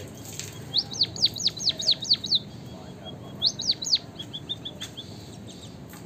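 White-headed munia calling: a rapid series of about seven sharp, high chirps, a short group of three, then a run of softer quick notes.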